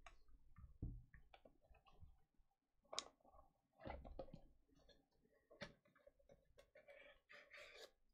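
Faint handling taps and clicks as a plastic card holder is set into a white cardboard box and the box is pressed shut and moved, with a few soft thumps and a light rustle near the end.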